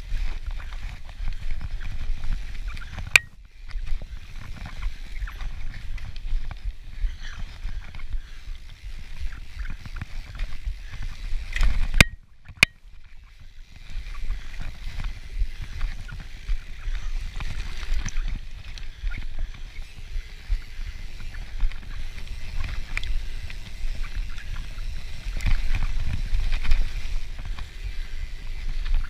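Cannondale FSI Carbon mountain bike ridden fast down a dirt forest trail: steady wind rumble on the camera microphone with tyre noise and the bike rattling over the ground. A few sharp clacks from the bike come through, one about three seconds in and two close together about twelve seconds in.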